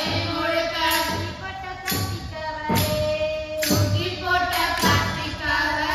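Tamil villupattu (bow-song) music: girls' voices singing to percussion, with a beat about once a second and tambourine jingles.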